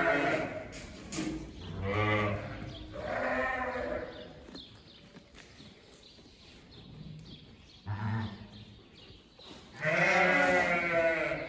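Sheep bleating: a string of long bleats one after another, a quieter gap of a few seconds, then a short, deeper bleat followed by another long one near the end.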